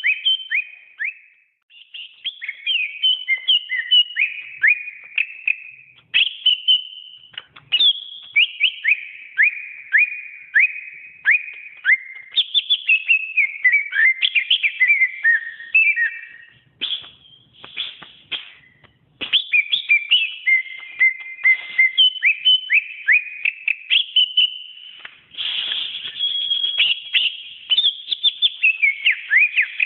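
Cucak ijo (greater green leafbird) singing a fast, varied song of rapid whistled notes and chirps, with a few brief breaks.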